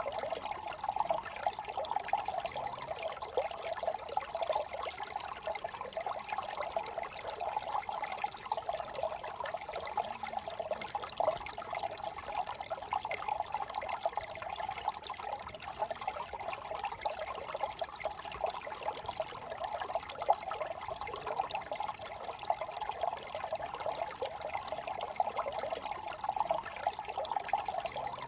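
Small brook trickling and burbling steadily over stones, a busy babble of small water sounds.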